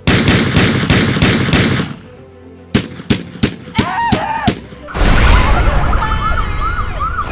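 Sound-effect montage of violence. A rapid burst of automatic gunfire lasts about two seconds. A few single shots follow, then a loud explosion about five seconds in, and then a fast, repeating wail from an emergency siren.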